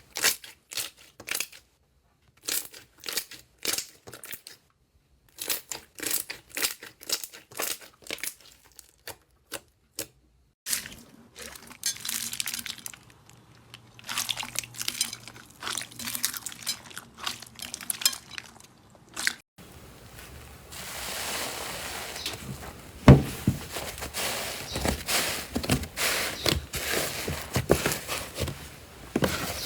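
Slime being pressed, poked and stretched by hand, making sharp clicks and crackles. Near the middle the clicks crowd together, and in the last third they turn into a steady crinkling crackle.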